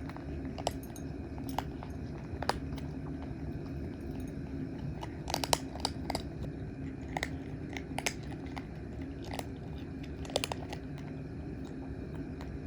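Cats eating dry food: irregular crisp crunches and clicks of chewing over a steady low hum.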